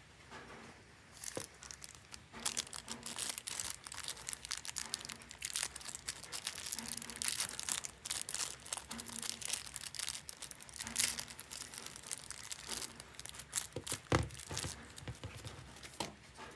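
Thin clear plastic bag crinkling and rustling in a stream of fine crackles as a vinyl figure is handled inside it and taken out. A single soft thump comes about fourteen seconds in.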